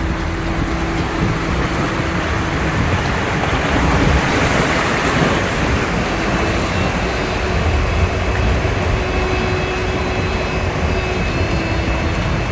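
Land Rover Discovery 3 crawling through a rocky river: a steady low engine rumble under a continuous rush of water around the vehicle, the water noise swelling about halfway through.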